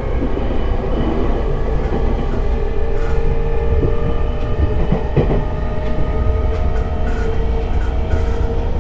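E217-series electric train running, heard from inside the car: a steady low rumble of wheels on rail with a steady whine over it, and a knock about five seconds in.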